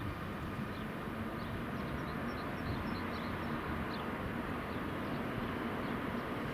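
DB Class 182 Siemens Taurus electric locomotive hauling double-deck regional coaches slowly toward the platform: a steady low rumble with a faint, even hum over it.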